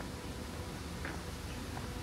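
Steady outdoor background hiss with a low rumble, and one faint short chirp about halfway through.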